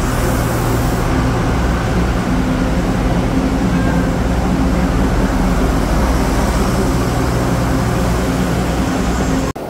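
Diesel passenger railcar moving slowly past close by, its engine a steady low drone under the noise of the train, with a brief hiss in the first second. The sound cuts off suddenly just before the end.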